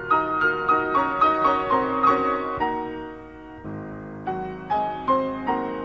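Background piano music: a quick run of notes for the first couple of seconds, then slower, spaced notes.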